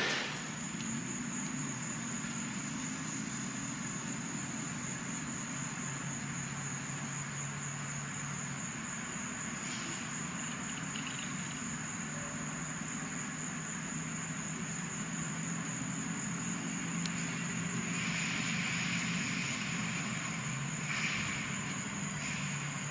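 Steady low engine rumble with a thin, constant high whine above it; the loud noise of a passing train cuts off right at the start.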